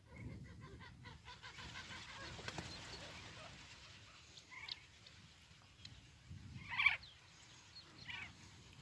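A flock of sandgrouse calling as it flies in: several short calls, the loudest about seven seconds in, over a low rustle.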